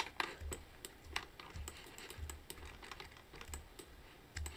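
Computer keyboard and mouse clicks: a dozen or so scattered, irregular clicks, fairly quiet, with faint low thuds between them.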